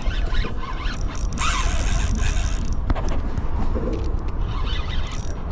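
Fishing reel clicking and whirring under load while a big hooked fish pulls against the line.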